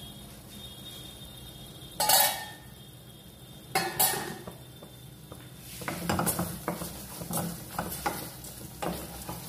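Metal clatters from the pan about two seconds in, and two sharp knocks near four seconds. In the second half a spatula stirs thick tomato chutney in a stainless steel kadai, scraping and knocking against the pan in quick strokes.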